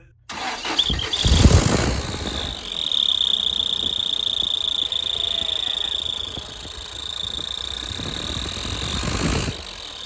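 Toyota forklift engine running with an aluminium turbo whistle in its exhaust pipe. The engine revs up about a second in, then the whistle gives a steady high-pitched tone for most of the rest, dipping briefly midway; the level drops near the end. The whistle works on this forklift at low revs.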